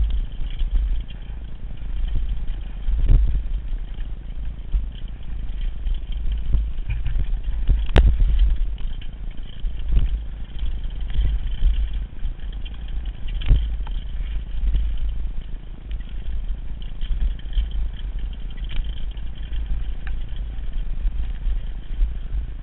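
Downhill mountain bike clattering and rattling over a rough dirt trail at speed, with wind rushing over the camera's microphone. Several sharp knocks as the bike hits bumps, the loudest about eight seconds in.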